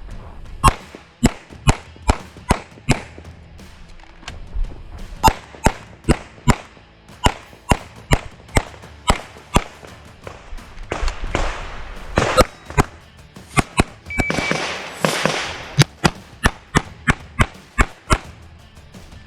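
Rapid strings of pistol shots from a CZ 75 TS Czechmate competition pistol, about three shots a second. The strings are broken by short pauses, and a rushing noise fills the pauses around the middle.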